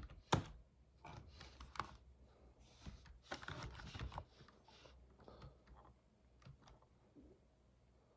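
Typing on a computer keyboard: a run of quiet key clicks for about four seconds, thinning to a few scattered clicks. One louder sharp sound just after the start.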